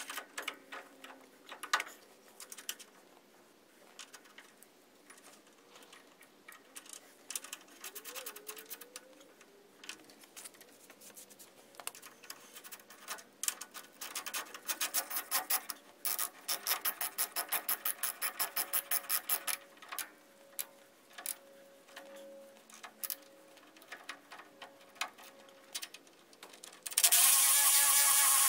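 Metal parts clinking as a wheel hub is fitted onto an axle spindle, with a run of rapid, even clicking a little past the middle. Near the end a cordless drill starts and runs steadily with a whine.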